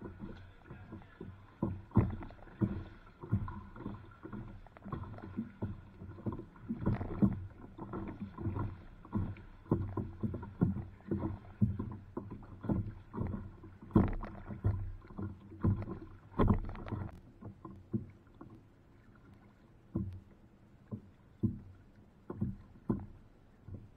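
Kayak being paddled through light chop: water splashing and slapping against the plastic hull with each paddle stroke, one or two hits a second, thinning out to scattered slaps about two-thirds of the way through.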